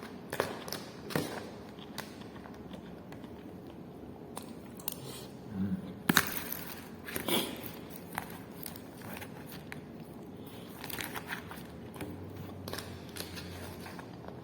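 A person eating a meal: chewing, with scattered small clicks and crinkling rustles, and two louder knocks about six and seven seconds in.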